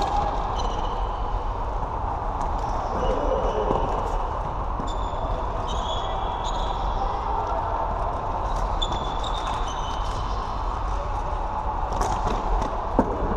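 Floorball play: shoes squeaking on the court floor in short high chirps, with sticks and the plastic ball clacking, over a steady hall hum. A sharper knock near the end is the loudest hit.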